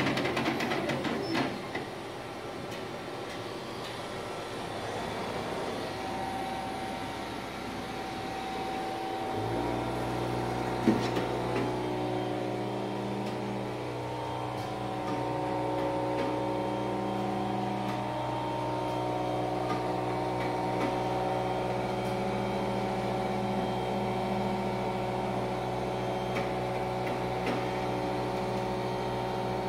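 Mimaki 3042 HG UV-LED flatbed printer's mechanism running, dying away over the first couple of seconds. About nine seconds in, a steady machine hum made of several constant tones starts and holds, with a single sharp click soon after.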